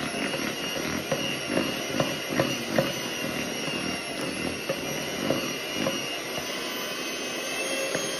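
Electric hand mixer running steadily, its beaters whipping raspberry buttercream icing in a mixing bowl. Irregular clicks and knocks of the beaters against the bowl come through the motor whine, mostly in the first few seconds.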